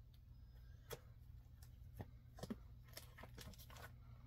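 Faint rustling and soft taps of comic books being handled and set down one at a time, over a low steady room hum.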